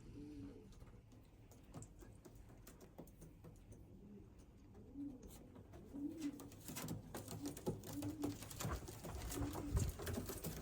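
Racing pigeons cooing in the loft, short low coos repeating every second or so. From about halfway, a growing run of clicks and rustles joins them.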